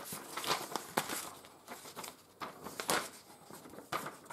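Paper instruction leaflet being unfolded and handled, crinkling and rustling in irregular bursts of sound.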